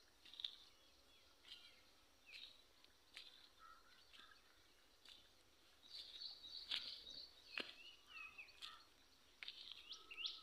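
Small birds chirping, short scattered calls with quick up-and-down slides in pitch, faint, growing busier about halfway through.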